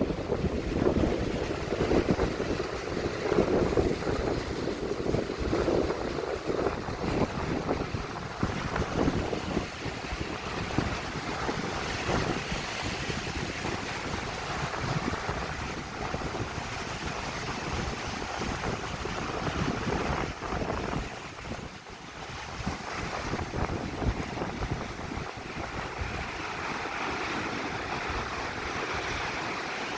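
Strong wind buffeting the microphone over surf breaking on a beach, in uneven gusts that ease for a moment about two thirds of the way through.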